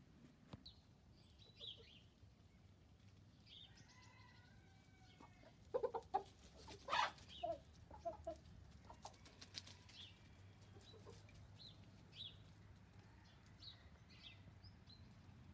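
Domestic hens clucking, with a cluster of loud clucks about six to seven seconds in and softer calls around it.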